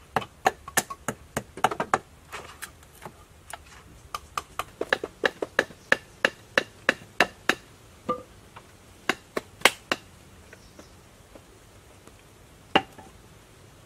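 Knife chopping at bamboo: quick, sharp strikes about three a second in two runs with a short pause between, then one last strike near the end.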